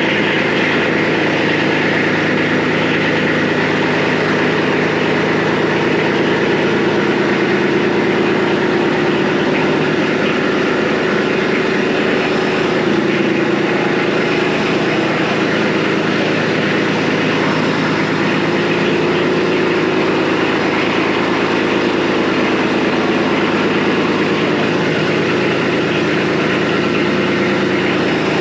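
Brand-new Kubota B2601 compact tractor's three-cylinder diesel engine running steadily just after its first-ever start.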